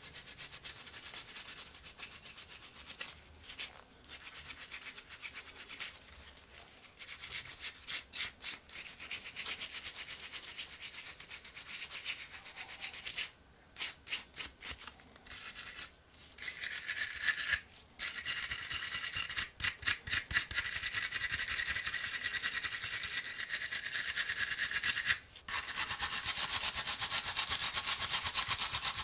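Rapid back-and-forth brushing of rust off an antique Bulldog revolver's steel frame and cylinder, first with a plastic toothbrush, then with a wire brush. The scrubbing gets louder and hissier in the second half, with a brief pause shortly before the end.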